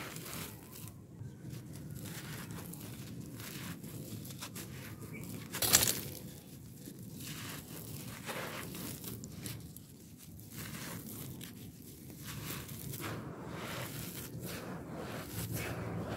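Dry red dirt scooped, squeezed and crumbled by hand: a continuous gritty crunching and rustling of soil grains, with one sharp, much louder crunch a little before the middle.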